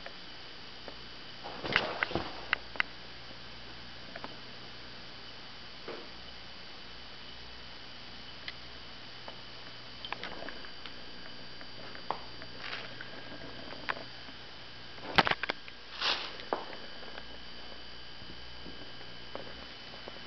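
Scattered soft rustles, scratches and taps of a kitten's paws and claws on a quilted fabric cushion, louder in short clusters about two seconds in and again around fifteen seconds, over a steady hum with a faint high whine.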